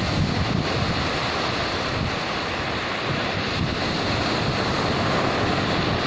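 Surf breaking and washing up a sandy beach in a steady rush, with wind buffeting the microphone in low, gusty rumbles.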